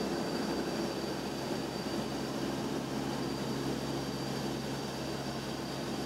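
Steady drone of an LC-130 Hercules's turboprop engines and propellers, with a constant high whine above the low hum.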